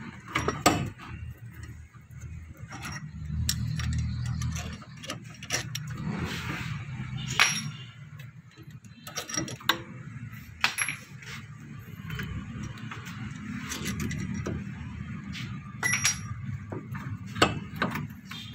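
Irregular metal clinks and knocks of hand tools and loose parts while a car air-conditioning compressor's pulley is being taken apart to replace its pulley bearing, over a low steady hum.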